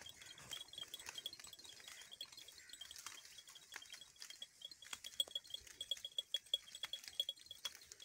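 Goats browsing, with many small sharp clicks and crunches of leaves being torn and chewed. Under them runs a rapid, steady high-pitched chirping.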